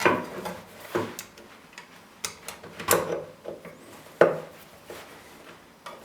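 Separate sharp clicks and knocks, about five in all and roughly a second apart, from the vinyl cutter's back plate and its screws being handled and fitted back on with a Phillips screwdriver.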